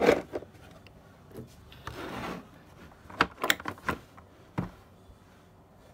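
Hands handling parts in a plastic tool case for a car air-conditioning manifold gauge set: rubbing and scraping, then a few sharp clicks and knocks between about three and five seconds in.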